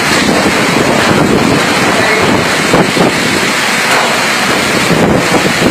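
Loud, steady rush of a storm: wind and heavy rain, with wind buffeting the microphone.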